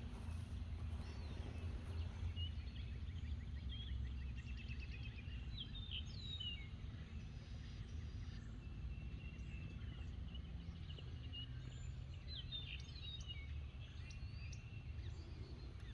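Wild birds singing and chirping in short phrases and trills, over a steady low rumble.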